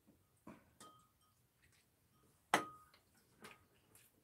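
Metal chopsticks and a spoon tapping and clinking on porcelain bowls and plates while eating: a few scattered clicks, the loudest about two and a half seconds in, with a short ring.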